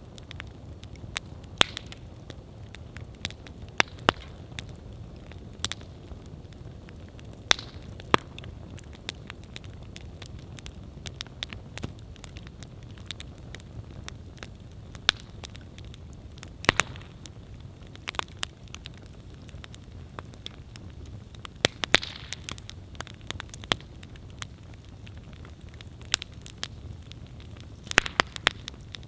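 Wood campfire burning: a steady low rumble of flame with irregular sharp crackles and pops from the burning wood, a few louder pops scattered through.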